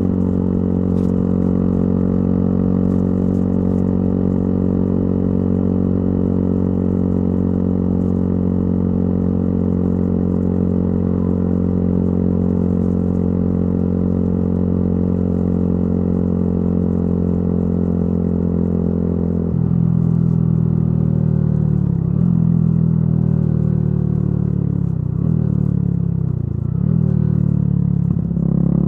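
Yamaha YZF-R125's single-cylinder four-stroke engine running through a modified exhaust, holding a steady engine speed on the move. About two-thirds of the way in the pitch drops, then falls and rises again several times toward the end.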